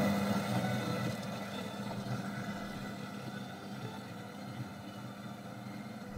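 Steady rushing noise with a low hum from a single-tube ECC85 super-regenerative FM receiver tuned off-station, with no broadcast coming through, as its trimmer capacitor is adjusted. It slowly grows quieter.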